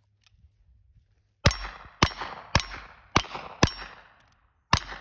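Revolver shots: five rapid shots about half a second apart, starting about a second and a half in, each with a short ringing echo. After a pause of about a second, one more shot near the end starts a new string.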